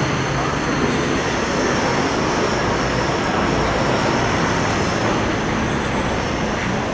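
Steady rushing background noise of a busy airport terminal entrance, with no single sound standing out.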